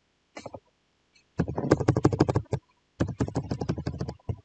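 Computer keyboard typing: a few keystrokes, then two quick runs of rapid key presses, each a little over a second long, as a word in a text field is deleted and retyped.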